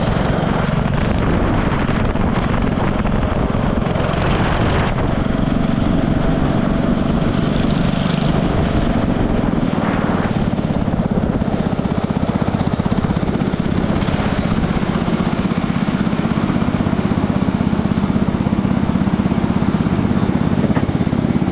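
Small go-kart engine running steadily, a constant low drone with a few brief swells.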